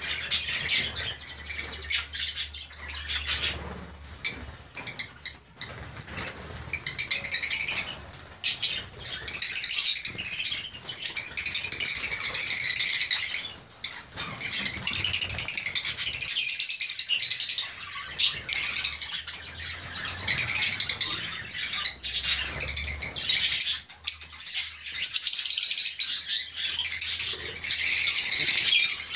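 A flock of lovebirds chattering: shrill, rapid chirping that comes in bursts of a second or two, with short clicks among them.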